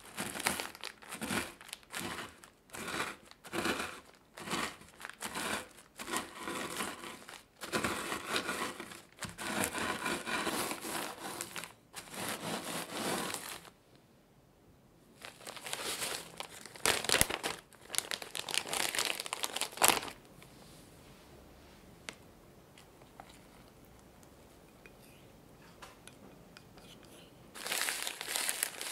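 Cookies being crushed to fine crumbs inside a plastic zip-top bag, with a rolling pin and by hand: plastic crinkling and crumbs crunching in repeated strokes. There are two sharp knocks about halfway through, then a quiet stretch, and the crinkling starts again near the end.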